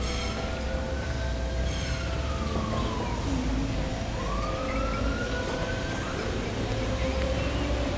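A siren wailing: its pitch rises, falls and rises again, then cuts off about six seconds in, over a steady low rumble.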